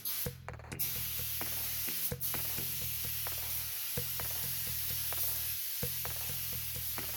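Paint spray gun hissing steadily as paint is sprayed onto a car panel, after two short bursts at the start, over background electronic music with a steady beat.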